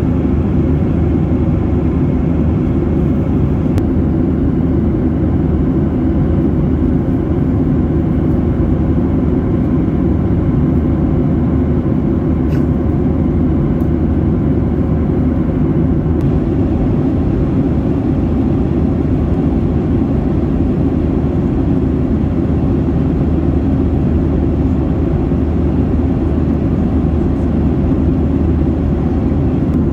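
Boeing 737-800 cabin noise in flight: a loud, steady low drone of engines and airflow with no change in pitch.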